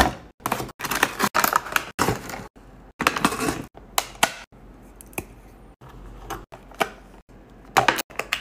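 Unboxing and handling of a plastic toy bubble camera: packaging rustling, then a series of sharp plastic clicks and taps as the battery compartment is opened and AA batteries are fitted.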